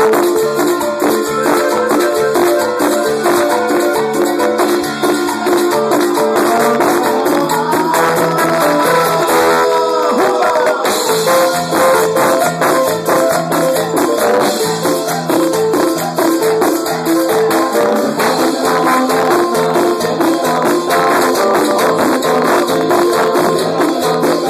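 Live band playing Latin dance music with an accordion over a steady beat of fast shaken percussion. A quick run of sliding notes comes about ten seconds in.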